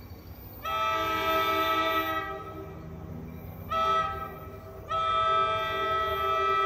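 Approaching commuter train's multi-note air horn sounding long, short, long: the closing part of the standard long-long-short-long signal for a grade crossing. A low rumble of the train runs underneath.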